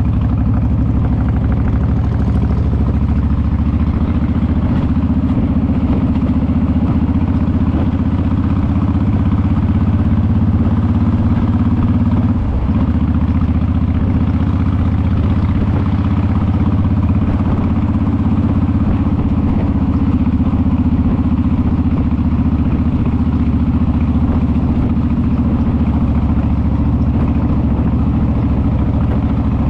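Honda VTX cruiser's V-twin engine running steadily under the rider at road speed, a deep even drone with one brief dip in level about twelve seconds in.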